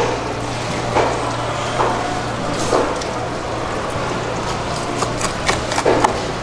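Knife cutting through a salmon head and collar on a plastic cutting board: scattered knocks and cracks, several in a quick cluster near the end, over a steady low hum.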